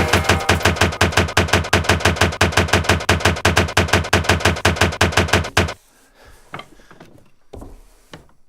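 Drum kit playing a fast, even run of strokes, about seven a second, each with a deep low thud under a bright crack. It stops abruptly near six seconds in, leaving a few faint, soft hits.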